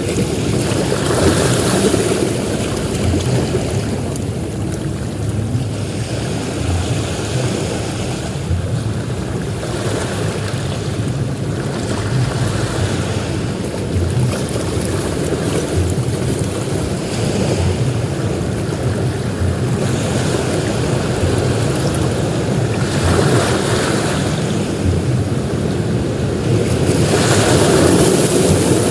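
Sea surf on a beach: a continuous wash of waves breaking, swelling into louder hissing surges every several seconds. Underneath is a low rumble of wind on the microphone.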